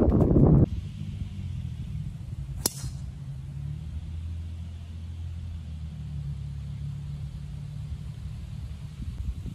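Wind buffeting the microphone briefly, then a low steady rumble with a single sharp crack about two and a half seconds in: a golf driver striking the ball off the tee.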